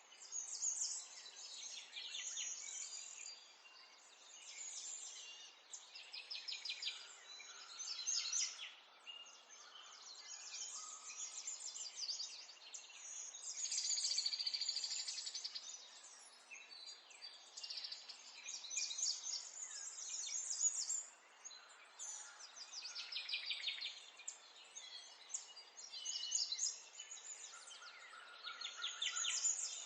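Several small songbirds chirping and singing over one another, with fast trills and quick chirp series coming in overlapping phrases, over a faint steady hiss.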